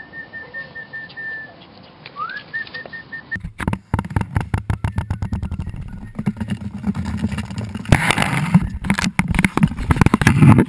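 Corgi puppies' paws and claws clattering and scrabbling on a hardwood floor right at the camera: dense rapid clicks and knocks with thumping underneath, growing louder and busiest near the end. Before this, for about the first three seconds, only a faint high note repeated in short pulses is heard.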